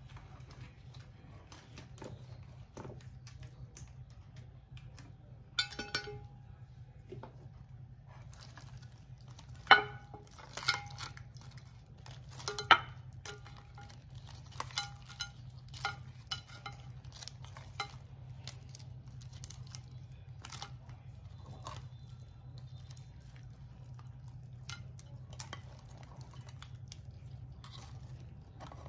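Crabs in coconut sauce being tipped from a pan onto a ceramic plate and pushed along with a spatula: the utensil scrapes and knocks against the pan and plate, and crab shells clatter down. Scattered clinks and knocks, the loudest about ten and thirteen seconds in, over a steady low hum.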